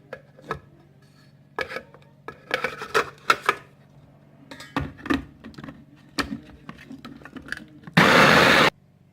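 Electric blender run in one short burst of under a second near the end, grinding chopped onion in water. Before it, a series of light knocks and clatters.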